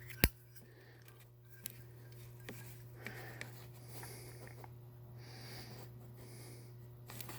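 Zippo lighter being handled while a sticker is peeled back from it: one sharp click just after the start, then light clicks and soft scraping.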